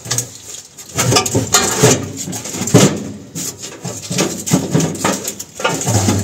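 Wiring being handled: plastic corrugated conduit, wires and connectors rustling and clicking irregularly as they are pushed and sorted.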